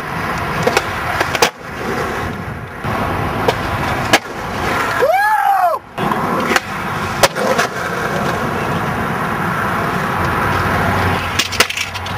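Skateboard wheels rolling over concrete with a steady rough grind, broken by several sharp clacks of the board hitting the ground. About five seconds in comes a short tone that rises and falls.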